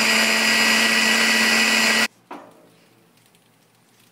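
Food processor motor running at full speed, blending hummus ingredients, with a steady hum and whine; it stops suddenly about two seconds in, followed by a light knock.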